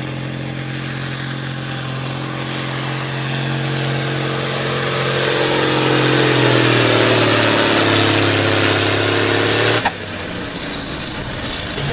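Case farm tractor's diesel engine running hard under load as it pulls a weight-transfer sled, growing louder, its note dropping about six seconds in. The sound cuts off abruptly near the end, giving way to another engine running.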